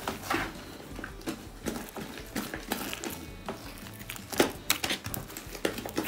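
Slime being squished and stretched by hand, giving irregular wet clicks and pops.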